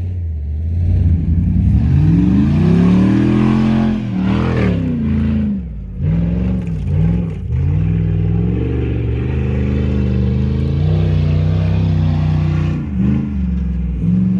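V8 engine revving hard under load while driving off-road. It climbs in pitch about two seconds in and peaks near four seconds, falls away, then dips and rises several times in quick succession before holding a steadier pitch, with another brief dip near the end.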